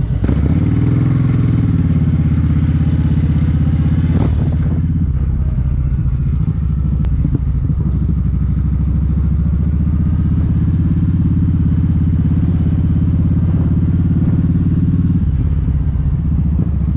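Kawasaki Vulcan 1700 Vaquero's V-twin engine running under the rider on the road, loud and steady. The engine note shifts near the start, again about five seconds in, and near the end.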